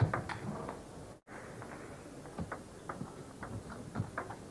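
Table tennis ball clicking off the bats and the table during a rally: a quick run of light, sharp ticks a few tenths of a second apart over faint arena murmur. The sound cuts out for an instant about a second in.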